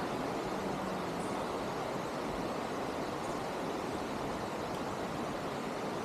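Steady rushing noise of an open aerial tram gondola moving through the forest, with a faint low hum briefly about a second in.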